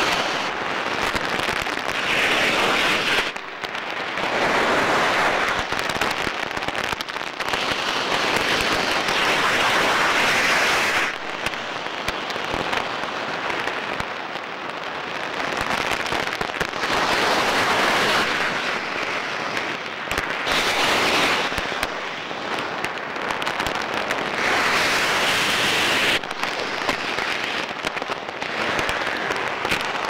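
Scuba diver breathing through a regulator underwater: surges of crackling exhaled bubbles every few seconds, with quieter stretches between them.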